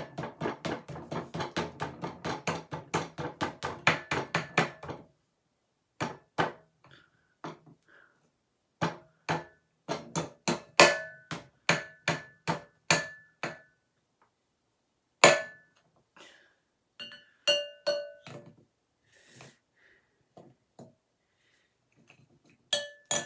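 A thin pick driven into a plaster fossil rock inside a glass bowl: a fast run of taps, about four a second for the first five seconds, then single harder strikes a second or so apart. Several of the later strikes set the glass bowl ringing briefly.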